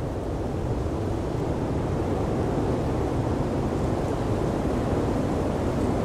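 Blizzard wind blowing as a steady, low rushing that slowly grows louder.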